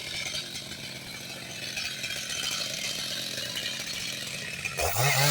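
Chainsaw engine running steadily at high speed while cutting into a large tree trunk, with a louder, wavering sound coming in near the end.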